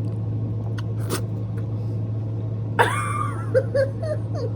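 A dog whining: one high, gliding whine about three seconds in, followed by a few short whimpers, over a steady low hum.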